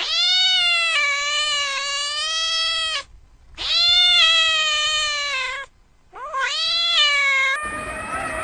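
A cat giving three long, drawn-out meows, each call wavering slightly in pitch, the last one the shortest. Near the end a different, noisier sound takes over.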